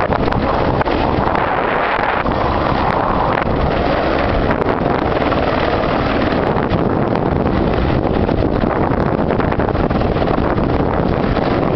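Helicopter engine and rotors running steadily, mixed with wind buffeting the microphone.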